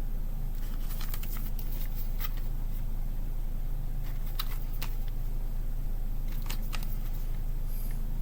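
Steady low electrical hum with a few faint, scattered clicks of a plastic CD case being handled and turned.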